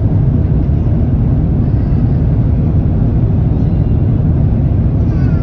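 Airliner cabin noise as the jet rolls along the runway: a steady, loud low rumble of engines and wheels.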